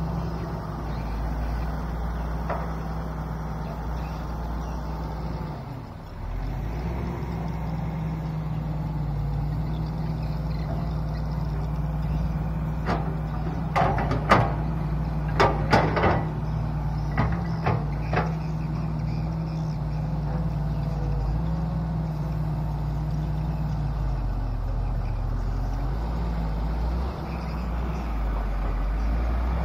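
Volvo 200 hydraulic excavator's diesel engine running steadily as the machine works, with a string of sharp metallic clanks from the machine about halfway through. The engine note drops lower for a few seconds near the end.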